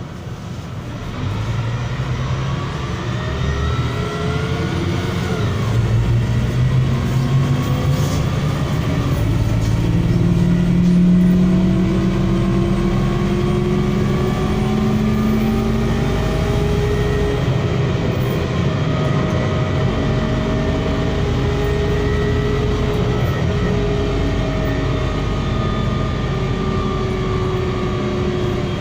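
MAZ-103.075 city bus engine and drivetrain under way, heard from on board. It pulls away and the whine rises in pitch over the first ten seconds or so, then runs on steadily at speed.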